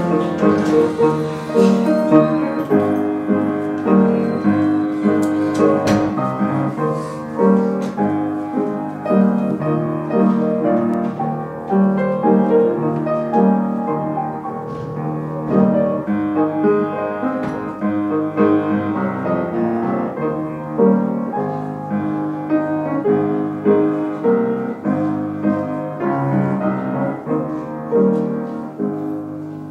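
Piano playing a hymn tune on its own, with many notes sounding together, dying away near the end.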